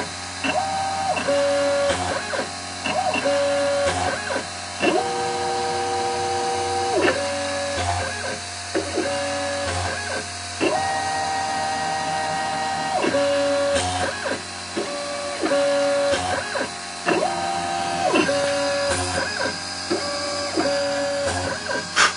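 Mini CNC machine routing a printed circuit board: its stepper motors whine in steady tones that change pitch every second or two as the axes move, over a constant hiss.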